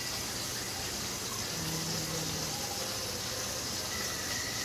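Food frying in hot oil on the stove: a steady, even sizzle.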